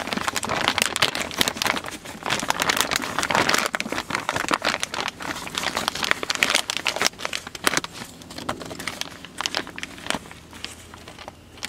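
Plastic packaging crinkling and crackling as hands work a gasket out of a new oil-cooler line set, busy for most of the time and thinning to scattered crackles near the end.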